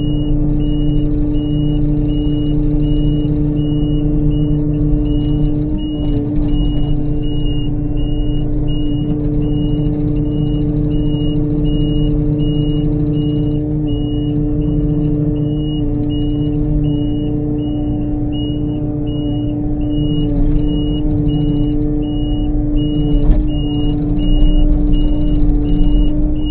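Kubota KX-080 excavator's diesel engine running steadily under load while the machine tracks and turns around, with its travel alarm giving a steady run of high beeps, a little more than one a second.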